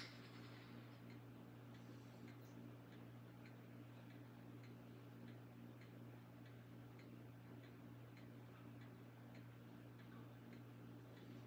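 Near silence: faint room tone with a clock ticking about twice a second over a low steady hum.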